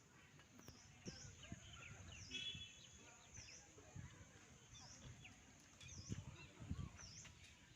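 Near silence: faint outdoor ambience with a bird's short high call repeating about once a second.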